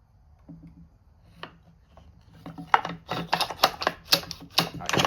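Recoil starter of a Homelite XL12 chainsaw being worked by hand to test it after a catching part was reshaped: a quick, irregular run of sharp plastic-and-metal clicks and rattles starting about two and a half seconds in.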